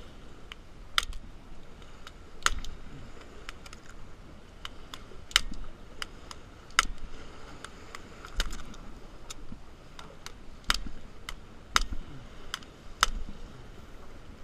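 Irregular sharp clicks and taps, about one every second, as fishing gear is handled: a fish lip-grip tool and tackle are taken out of a plastic bag.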